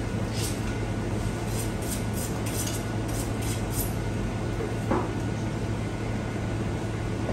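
Several knives cutting raw meat on a wooden butcher block, giving light clicks and scrapes through the first four seconds and one short, louder knock about five seconds in. A steady low hum runs underneath.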